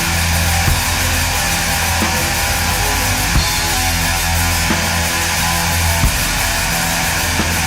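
Background heavy rock music with distorted electric guitars and a steady beat.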